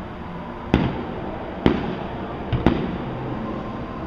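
Aerial fireworks shells bursting: four sharp bangs, the last two in quick succession, each with a short trailing rumble.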